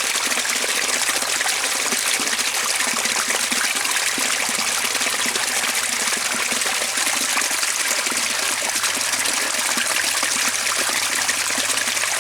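Waterfall: falling water rushing and splashing in a steady, even hiss.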